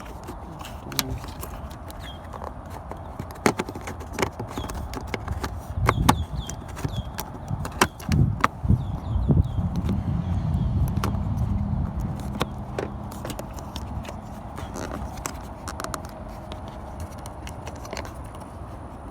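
Plastic clicks and knocks of a headlight's rear dust cap and housing being handled and refitted by hand, irregular and scattered, with a low rumble that swells up about six seconds in and fades again a few seconds later.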